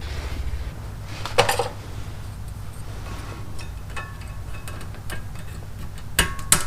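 Small metal clicks and clinks as brake pad hardware is fitted on the caliper bracket. There is a sharp clack about a second and a half in and two more near the end, over a low steady hum.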